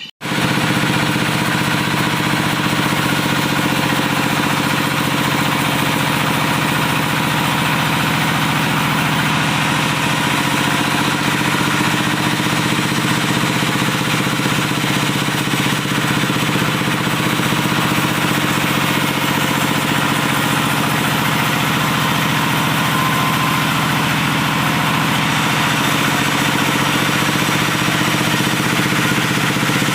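Diesel engine driving a wood saw, running steadily at a constant speed.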